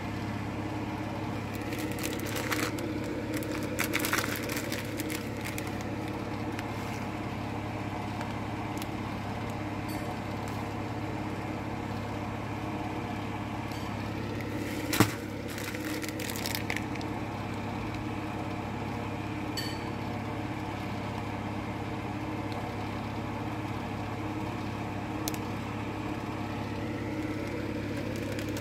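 A steady machine hum throughout, with plastic packaging crinkling and rustling in two spells and one sharp click about halfway through.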